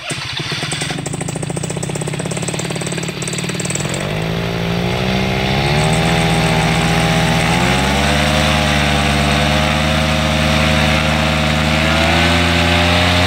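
Air Conception Nitro 200 paramotor's two-stroke engine and propeller running loudly. The throttle is opened in steps, so the engine note rises about four, five and a half and eight seconds in, then holds at high power.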